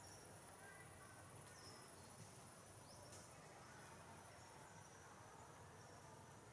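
Near silence: faint forest ambience with insects chirring high and thin in the background.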